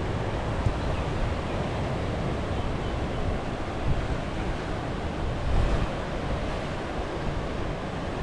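Ocean surf washing against the shore and rocks, with wind buffeting the microphone in uneven low gusts.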